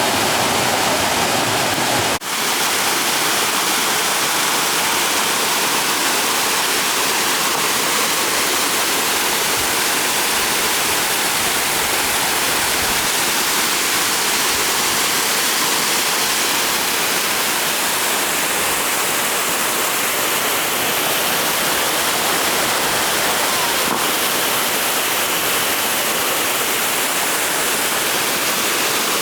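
Waterfall pouring over lava rock, a steady full rush of falling water, with a brief dropout about two seconds in.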